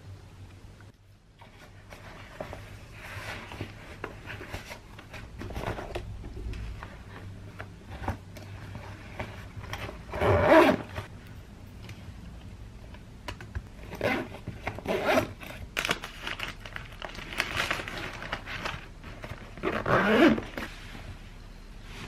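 A zipper on a small fabric pouch being pulled, among rustling and handling of cloth and a bag. There are several separate noisy strokes, the loudest about ten seconds in.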